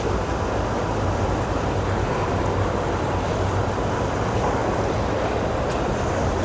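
Steady outdoor background noise: an even low rumble with a hiss over it, unchanging throughout.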